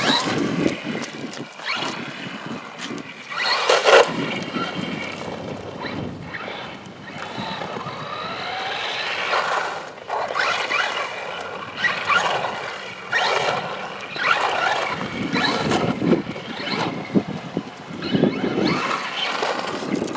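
Traxxas Rustler 4x4 VXL RC truck driven on asphalt: its brushless electric motor whines up and down in repeated bursts of acceleration and slowing, with tire noise on the pavement.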